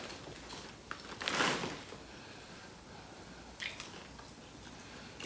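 Quiet chewing of candy-coated popcorn, with a click about a second in and short crunching or rustling sounds just after it and again near four seconds.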